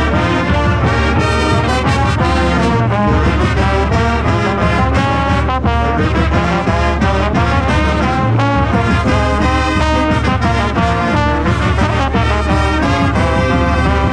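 Marching band playing a brass-heavy tune at full volume, heard from inside the band.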